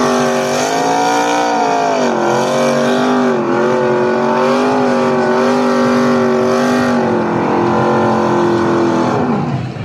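NASCAR Truck Series race truck's V8 engine held at high revs through a burnout, its pitch wavering and dipping briefly twice while the rear tires spin, over a steady hiss. Near the end the engine note falls away.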